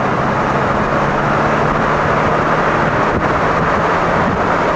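Steady road and engine noise of a moving car, with wind rushing over the microphone.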